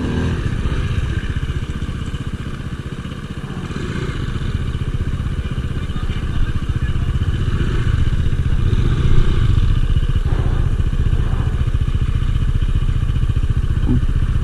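Small motorcycle engine running steadily during an off-road ride, with some rattling, growing louder about halfway through.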